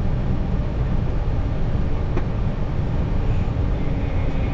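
Steady low rumble of a Boeing 737's engines and airframe heard inside the cockpit, with a faint click about two seconds in.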